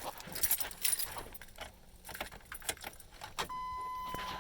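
A ring of keys jangling as the ignition key is handled, with scattered light clicks. About three and a half seconds in, a steady high electronic warning tone starts and holds.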